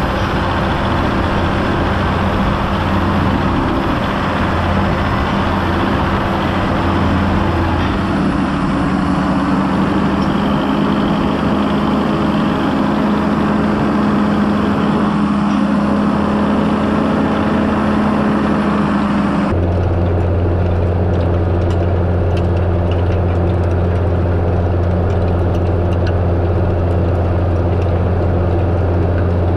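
John Deere 6930 tractor's six-cylinder diesel engine running steadily under load while pulling a 4 m Unia Mars cultivator through the soil. About two-thirds of the way through, the sound changes abruptly: the deep hum of the engine gets stronger and the hiss above it drops away.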